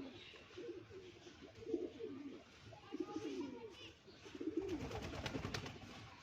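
Domestic pigeons cooing in repeated low, rolling phrases, with a spell of clicks and rustling near the end.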